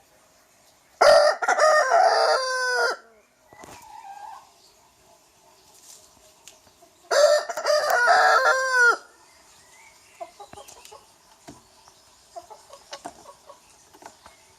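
Rooster crowing twice, each crow about two seconds long and falling in pitch at its end, with faint clucking and small taps in between.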